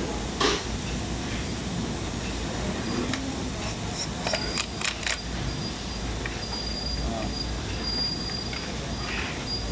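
Hard plastic parts clicking and knocking as a toy fire truck's water-cannon turret is handled and fitted back into its plastic body, over a steady hiss. There is a sharp click about half a second in and a quick run of clicks around four to five seconds, and a thin high tone comes in about four seconds in.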